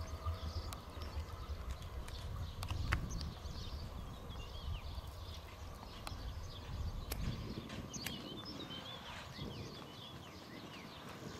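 Trenitalia Pop electric train rolling slowly into the station, with a low rumble and scattered sharp clicks of wheels over rail joints and points. Birds chirp faintly in the second half.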